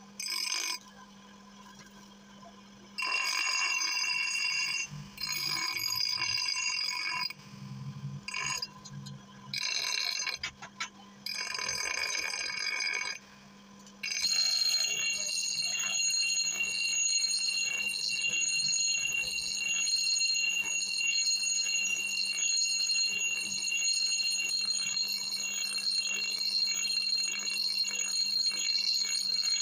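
Bench grinder wheel grinding the steel blade of a hand-forged adze (basula). In the first half the blade touches the wheel in short bursts; from about halfway the grinding is continuous, a steady high-pitched whine over the motor's low hum.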